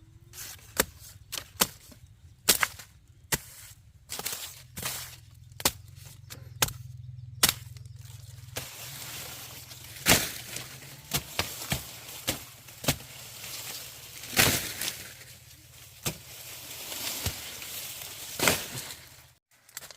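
Sugarcane being chopped with a blade: sharp, irregular cracking strikes about once or twice a second, with leafy rustling from about halfway through.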